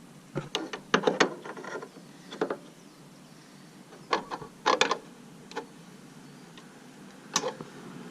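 Scattered light metallic clicks and clinks, some in quick little clusters, of a brake-line tube nut and AN fitting being handled and threaded together by hand.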